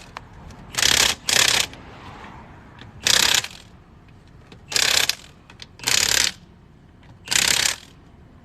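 Impact wrench fitted with a torque stick, running the lug nuts onto a car wheel in six short bursts of about half a second each.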